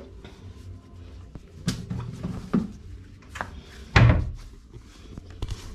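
Ball of dough slapped down hard on a tiled counter during kneading, several dull thuds with the loudest about four seconds in; the slapping knocks air bubbles out of the dough.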